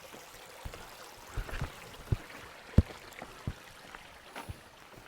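Footsteps on rock during a hike, about seven irregular low thumps and scuffs over a steady outdoor hiss.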